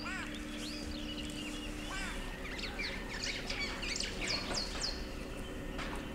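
Several wild birds calling: a few arching chirps, then a run of quick, falling whistled notes about four seconds in.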